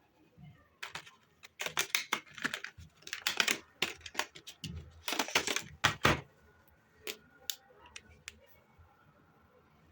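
Close-up handling sounds: a rapid run of clicks, taps and rustles as small objects are handled, busiest through the first six seconds, then a few sparse clicks.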